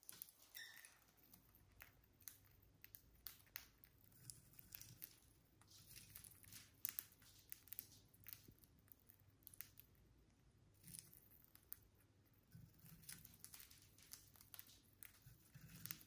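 Faint, irregular clicks and crunches of lovebirds cracking and nibbling seeds.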